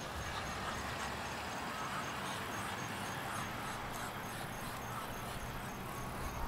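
An insect chirping steadily in a high, even rhythm of about three short chirps a second, over a steady background hiss of distant road traffic.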